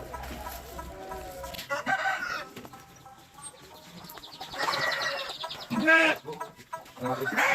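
Bangkok game fowl in a coop crowing and clucking: a short call about two seconds in, then a long crow from about four and a half seconds, with more calls near the end.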